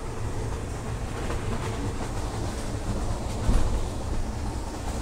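Passenger train carriage running, heard from inside a sleeper compartment: a steady low rumble with rattling, and a heavier knock about three and a half seconds in.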